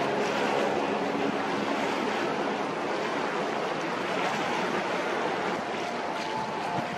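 Steady wash of choppy harbour water with some wind, and a faint hum of machinery beneath it.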